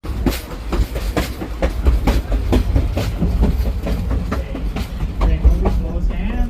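Passenger rail car of a moving train heard from inside: a steady low rumble with sharp clicks of the wheels over rail joints, about two a second.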